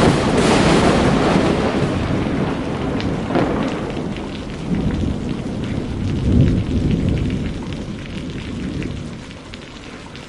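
A thunder-like rumble with rain-like hiss and scattered crackles, loud at first and fading away over about ten seconds.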